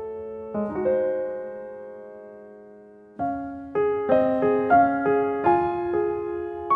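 Background piano music: a soft chord rings and fades away, then a quicker run of piano notes picks up about three seconds in.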